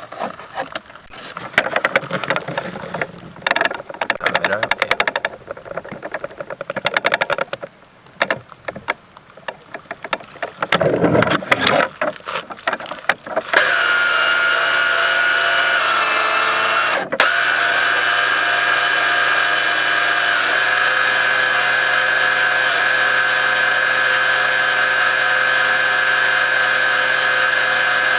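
The on-board sound of a small radio-controlled boat. For the first half, choppy bursts of water splashing against the hull mix with the motor. About halfway in, the motor settles into a steady high-pitched whine that shifts slightly in pitch a couple of times and briefly dips once.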